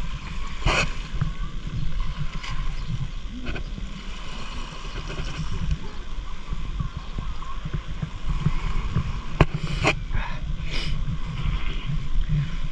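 Seaside ambience: small waves lapping at the water's edge under a choppy rumble of wind on the microphone, with a few sharp clicks.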